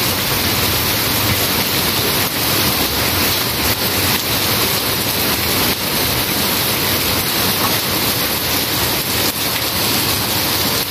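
Heavy rain falling steadily on the alley and the surrounding roofs, a dense, even hiss.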